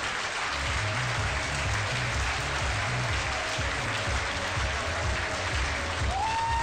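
Crowd applauding and cheering, with the thumping bass of background music coming in about half a second in.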